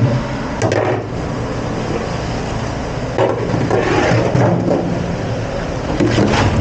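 Dishes and trays knocking and clattering as they are handled in a commercial kitchen dish area. The knocks come irregularly, over a steady low hum of kitchen machinery.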